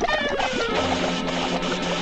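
Orchestral cartoon score: a quick downward sweep in the first second, then sustained low notes.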